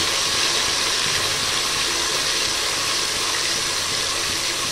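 Ginger-garlic paste and sliced onions frying in hot oil in a metal pot, a steady sizzle as they are stirred with a ladle.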